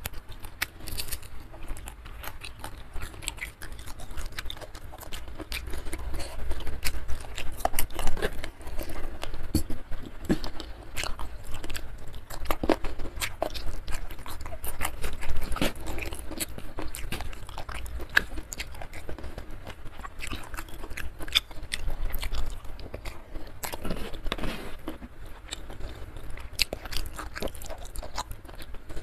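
A person chewing and biting crisp fried salted fish with rice close to the microphone: a steady run of small, irregular crunches and crackles.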